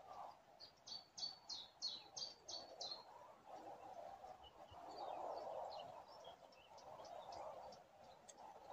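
High, thin bird chirps: a quick, even run of about eight notes in the first three seconds, then scattered fainter chirps. Under them runs a faint, steady rushing background noise.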